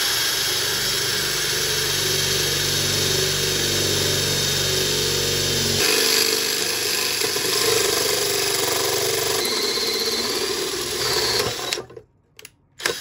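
Ryobi cordless drill driving a hole saw through sheet metal: a steady motor whir mixed with the high grinding of the saw teeth cutting the metal. The sound changes about six seconds in, cuts off shortly before the end, and is followed by a few brief clicks.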